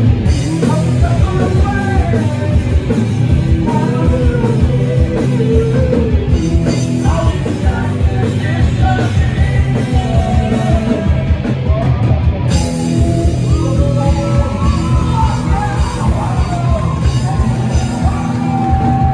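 Live punk rock band playing loud: electric guitars and bass with yelled, sung vocals.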